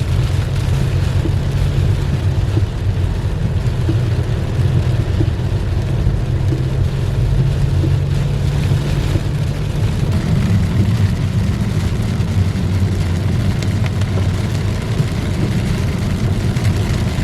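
Car driving in heavy rain: steady road and engine noise with rain hissing against the car.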